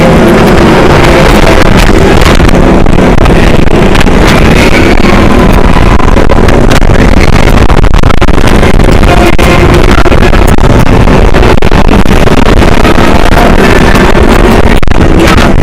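Intamin motorbike roller coaster train running at speed, a loud, unbroken rush of wind buffeting the microphone over the rumble of the wheels on the steel track.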